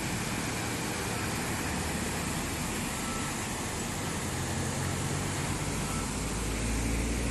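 Steady rushing of floodwater pouring down a stepped concrete weir, with a low rumble that builds near the end.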